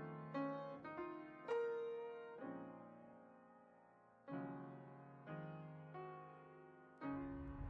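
Background music: a slow, soft piano piece of struck notes and chords left to ring and fade, with one long chord dying away through the middle before new notes come in.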